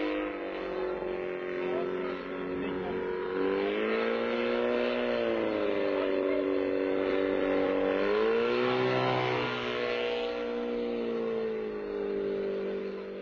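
Engine of a single-seat ultralight gyrocopter droning in flight, its pitch swinging up and down several times as the throttle or its distance changes.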